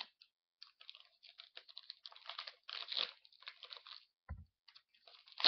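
Wrapper of a Pokémon card sample pack being torn open and crinkled, a run of irregular crackles, with a brief dull thump a little past four seconds and a sharp loud crackle at the end.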